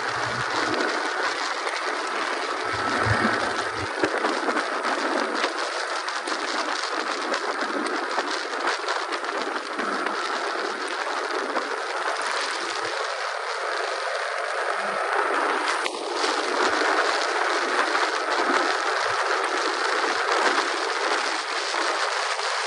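Steady rush of wind and tyre hiss on wet tarmac from a motorcycle riding at speed, heard through a helmet-mounted camera.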